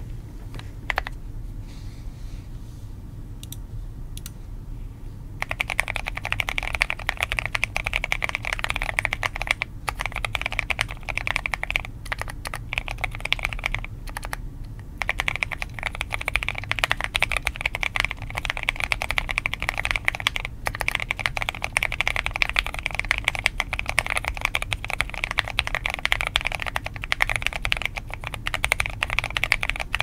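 Typing on a Keychron Q10 mechanical keyboard with Durock Light Tactile switches, a POM plate, PE foam, a three-layer tape mod and KAT Cyberspace keycaps. A few scattered keystrokes give way after about five seconds to fast continuous typing, which stops briefly around the middle and then resumes.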